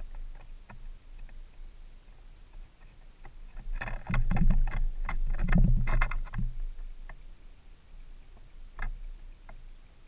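Red-bellied woodpecker pecking and scrabbling on a wooden bird feeder right next to the microphone: a dense run of taps and knocks lasting about two and a half seconds, starting about four seconds in, with scattered single taps before and after.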